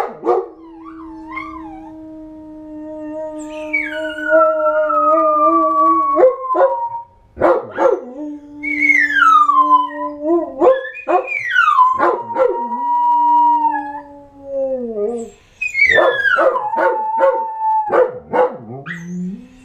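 Dogs howling in long drawn-out howls, two voices at once: one holds a low steady note while the other slides down from a high pitch. The howls break off several times for a few short barks or yips.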